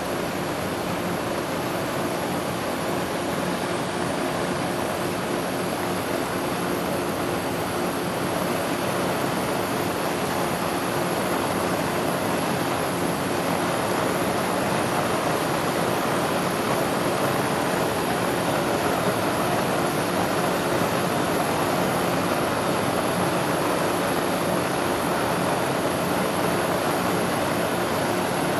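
Gas burner flame blowing steadily against a fire-barrier test sample: an even rushing noise with a faint hum, growing slightly louder over the stretch.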